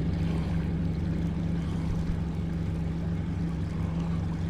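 Mercury outboard motor running steadily at trolling speed, a constant low hum, with the wash of the boat's wake underneath.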